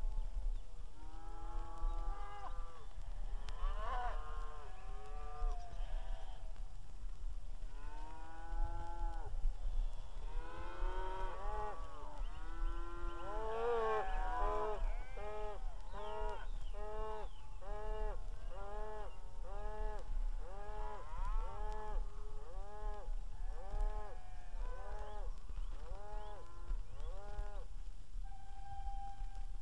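A herd of cattle mooing, calls overlapping, with a quick run of short moos through the second half. A brief steady whistle sounds near the end.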